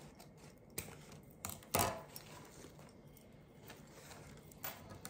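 Scissors snipping wired fabric ribbon, with the rustle of the ribbon being handled: a few short, sharp snips and clicks, the loudest about two seconds in.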